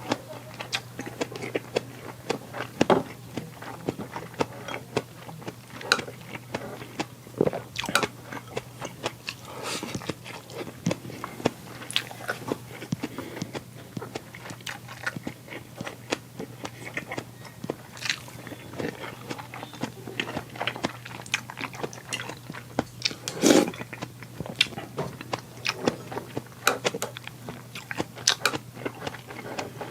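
A person eating close to the microphone: chewing and crunching with many small irregular clicks and smacks, one louder about three-quarters of the way through, over a steady low hum.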